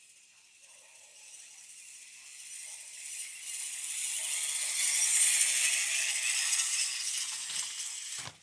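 Pulley carriage of a timber cable line running down the steel cable with a high rattling whir that grows steadily louder as the load comes in. It cuts off suddenly with a dull thump near the end as the load hits the tyre buffer at the bottom.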